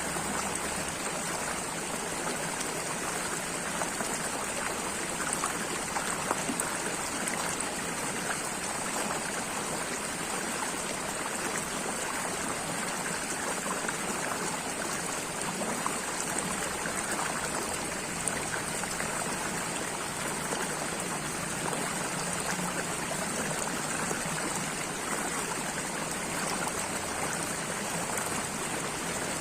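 Running water from a stream, a steady, unbroken rush with many small splashes over it.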